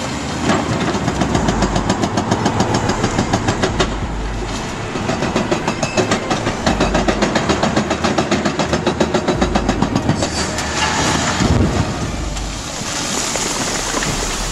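A heavy engine or rail vehicle running with a rapid, even pulsing beat of several pulses a second, which gives way to a steadier noise near the end.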